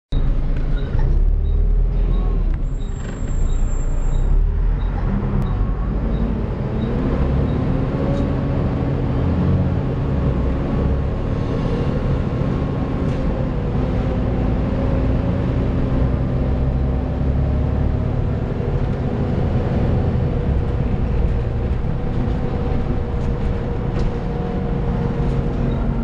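Volvo B7TL double-decker bus running on the move, heard from the upper deck: a heavy low drivetrain rumble with a steady whine over it that rises in pitch about seven seconds in. This whine is the vacuum-cleaner-like "hoover" sound that bus enthusiasts prize in these buses.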